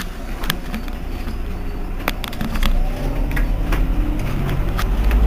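The engine of an Irisbus Iveco Citelis 18 articulated city bus idling at a stop, a steady low hum that swells a little about halfway through. Scattered sharp clicks sound over it.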